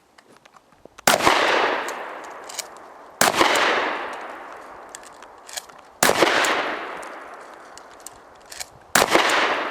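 Four 12-gauge shots from a Remington 870 pump-action shotgun, about two to three seconds apart, each with a long echo dying away behind it. Fainter short sharp sounds come between the shots.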